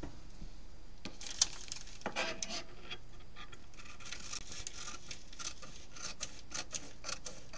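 Scissors cutting through a plastic tablecloth: a run of crisp snips with crinkling plastic, and a single sharp click about one and a half seconds in.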